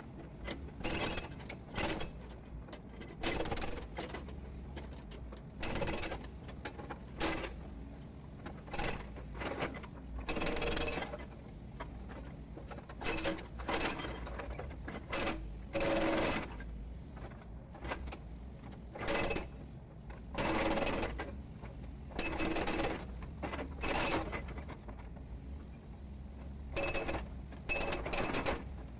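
Hydraulic breaker on a Volvo EC210D excavator hammering chunks of concrete piling in short, irregular bursts of rapid blows, roughly one burst a second, each with a metallic ring. The excavator's diesel engine runs steadily underneath.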